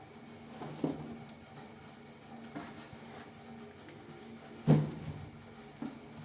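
A few short, soft knocks and bumps, four in all, the loudest about three-quarters of the way through, over a faint steady hum: kittens playing and bumping into things.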